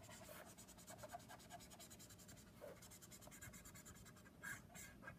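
Faint scratching of a Copic alcohol marker's brush nib stroking across paper, many short strokes in a row, a little louder near the end.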